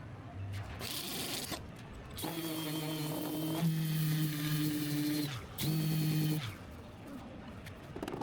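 A motor-driven tool running with a steady hum for about three seconds, its pitch sagging as it stops, then running again for under a second. Light clatter comes before it.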